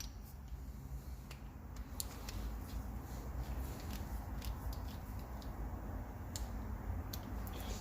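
Scattered light clicks and taps of a hand wrench working the injector clamp bolts on a 1.9 TDI PD cylinder head, as they are tightened to 12 Nm, over a low steady hum.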